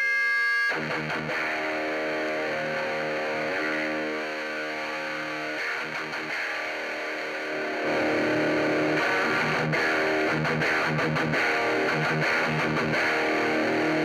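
Electric guitar played through an SSAUDIO distortion pedal into a Marshall JCM900 amplifier: heavily distorted chords and riffs. The sound gets louder about eight seconds in, as a knob on the pedal is turned.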